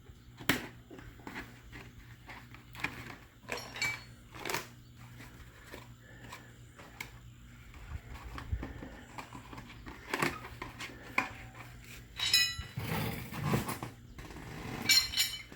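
Scattered clicks and knocks of rim protectors being fitted onto a motorcycle wheel rim, then metal tire irons clinking with a short ringing about twelve seconds in and again near the end.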